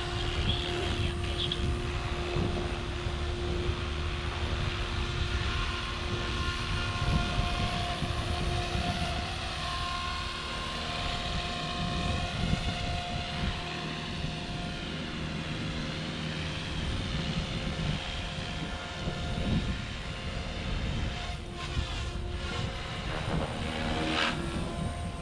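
Electric RC helicopter, an OMPHOBBY M4 Max, in flight: its motor and rotor blades whine steadily, the pitch wavering up and down as it manoeuvres.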